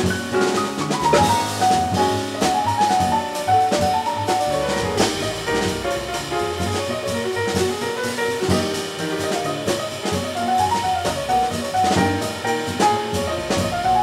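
Jazz piano trio playing live: a grand piano plays a running melodic line over an upright double bass and a Gretsch drum kit, with steady cymbal and drum strokes throughout.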